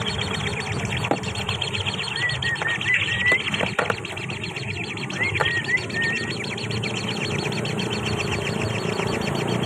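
Short rising bird chirps in two brief runs, one a couple of seconds in and another about five seconds in, over a steady fast pulsing trill.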